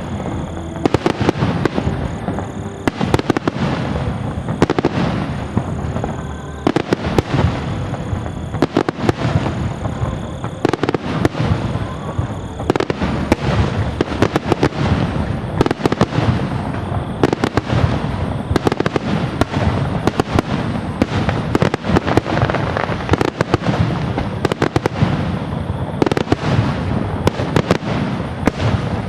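Fireworks going off in rapid succession: many sharp bangs and crackles, one after another with no pause.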